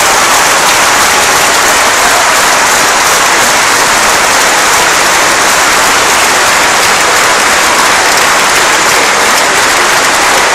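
Large audience applauding: a dense, steady wash of clapping.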